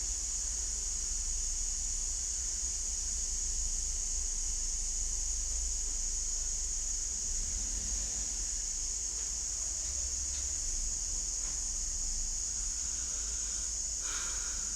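Outdoor ambience: a steady high-pitched drone over a low rumble, with a faint short sound about fourteen seconds in.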